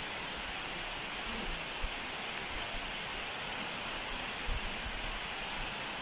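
Forest insects, such as cicadas or crickets, calling in a high-pitched pulsing chorus about twice a second, over the steady hiss of a flowing stream.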